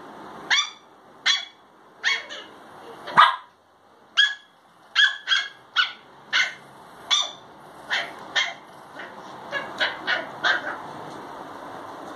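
A small dog barking in play: a string of short, high yaps at irregular spacing, sometimes two or three in quick succession, the loudest about three seconds in, fading near the end.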